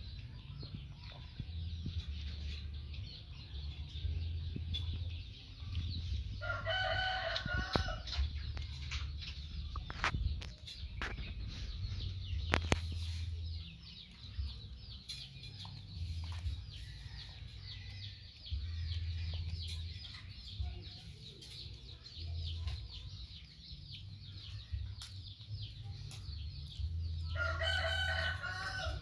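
A rooster crows twice, once about seven seconds in and again near the end, each crow lasting about a second and a half, over a dense high-pitched ticking background.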